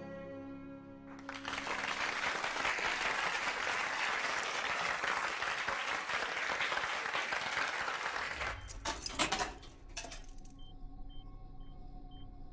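A cello's last bowed notes, then an audience applauding for about seven seconds. Then a cluster of sharp clicks from switches and keys on a control panel, followed by a short high electronic beep repeating about twice a second.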